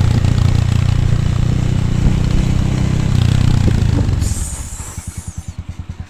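Motorcycle engine running under way, a steady hum mixed with riding noise. A little after four seconds in the level drops and the engine settles into a low, even putter, as when the throttle is closed and the bike slows.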